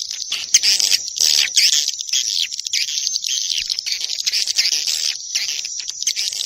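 Swiftlet lure recording: a dense, continuous, high-pitched twittering of many overlapping swiftlet chirps, the kind of call sound broadcast from a swiftlet house to draw the birds in to roost and nest.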